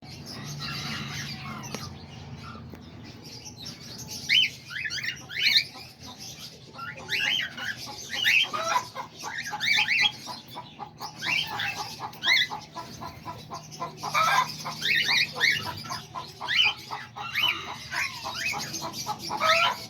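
Aviary of small pet birds chirping and calling over one another: many short rising calls, with a rapid run of chatter in the middle. A faint steady low hum sits underneath.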